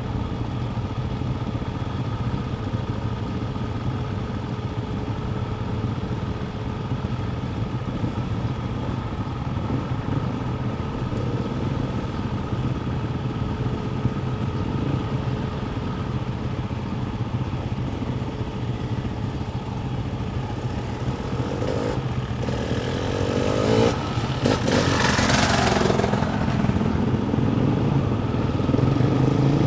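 Several enduro dirt bikes idling together, a steady engine hum. About three-quarters of the way through the engines are revved and grow louder as the bikes get moving.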